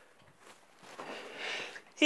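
A man's breathy, gasping inhalations building up to a sneeze, growing louder from about halfway in.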